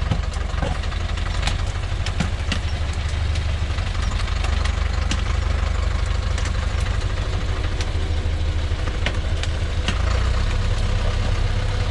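Engine of a heavily laden log truck running steadily with a deep rumble as the truck crawls through soft mud. Scattered sharp clicks and cracks come and go throughout.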